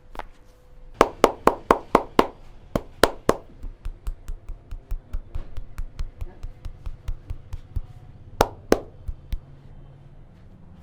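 A barber's hands striking rhythmically in a percussive massage. A burst of about eight loud slaps comes at roughly four a second, then a long run of lighter, quicker taps at about five a second, with two loud slaps near the end.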